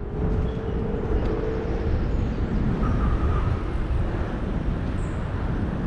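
Wind buffeting the microphone of a bicycle-mounted camera, over the rumble of the bike rolling along asphalt. A faint steady hum rises slightly in pitch over the first two seconds.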